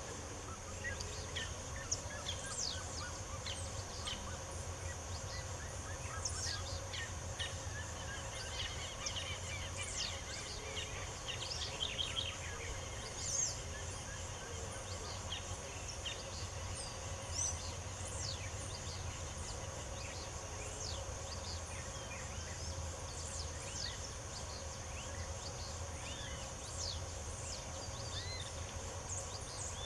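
Several songbirds chirping and calling in short, quick notes and sweeping whistles, over a steady high-pitched drone of insects and a low background rumble.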